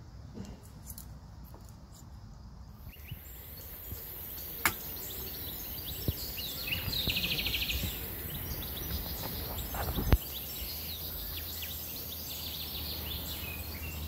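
Outdoor ambience with small birds chirping over a steady hiss that comes in about three seconds in, with a few sharp clicks and knocks, the loudest about ten seconds in.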